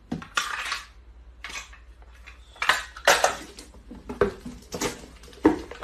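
Cardboard boxes being handled and sealed with packing tape: tape pulled off the roll and box flaps folded and pressed down, in a string of short, irregular scraping and crackling bursts, the loudest about three seconds in.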